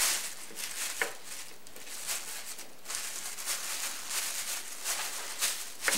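Thin plastic grocery bag crinkling and rustling in irregular strokes as hands smooth it flat and tuck in its sides.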